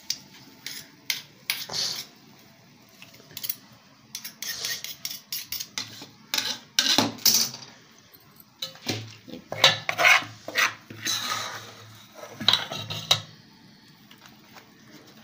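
Steel spoon scraping and clinking against a metal cooking pot in many short, irregular strokes, as fried onions are scooped out and pressed to drain off the oil.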